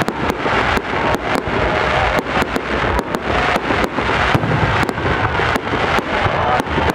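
Fireworks barrage: aerial shells bursting in quick succession, several sharp bangs a second over continuous crackling.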